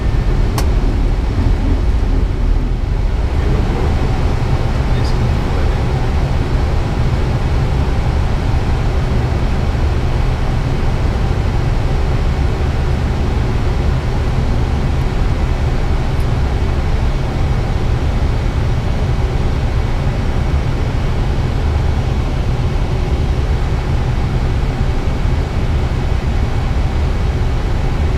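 Steady flight-deck noise of an Airbus A320 descending on approach: a deep rumble with a rushing hiss over it and a faint steady hum. A single light click about half a second in.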